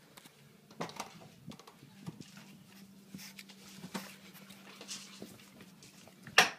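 French bulldog moving about excitedly at close range: scattered clicks and scuffs, with one loud sharp knock near the end, over a faint steady hum.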